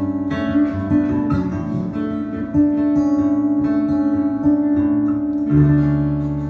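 Acoustic guitar playing the song's closing instrumental bars, with a final low chord struck about five and a half seconds in and left ringing.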